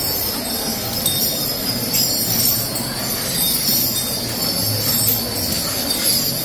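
Steady jingling and clinking of the bells and chains hung on a decorated temple elephant.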